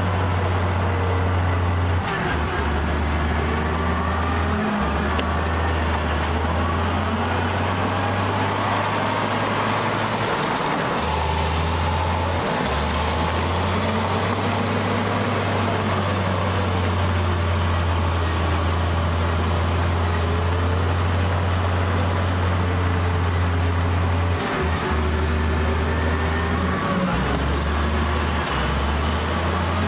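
Diesel engines of a bulldozer and a dump truck running, the low engine note shifting every few seconds as the machines work, with rising and falling whines above it.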